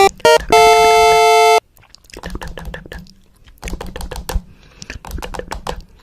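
A loud buzzer-like electronic tone: two short blips, then one held for about a second that cuts off sharply. It is followed by a run of quick, irregular clicks over a faint low hum.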